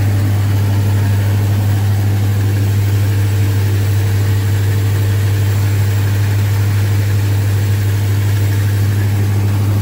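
1978 Chevrolet K30's carbureted engine idling steadily just after a cold start, a constant low hum with no change in speed. It is still on fast idle, the choke not yet kicked down.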